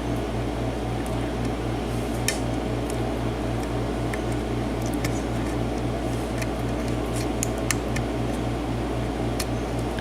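Faint, scattered metallic clicks of a lock pick and tension wrench working the pins inside a pin-tumbler mortise cylinder, over a steady low hum from a fan or motor with a slight regular pulse.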